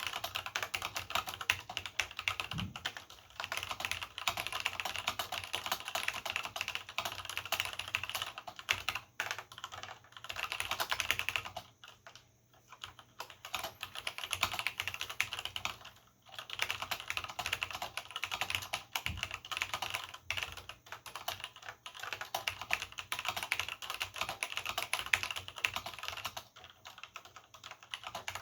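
Continuous fast typing on a vintage Cherry G80 keyboard with Cherry MX Black linear switches and doubleshot keycaps: a dense clatter of key strikes, with short pauses about twelve and sixteen seconds in and again near the end.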